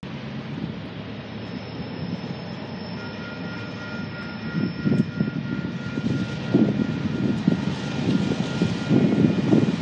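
Diesel-electric locomotive, a GE AC44CW, approaching: a steady low engine rumble that grows louder, with uneven surges in the second half and a few faint steady high tones above it.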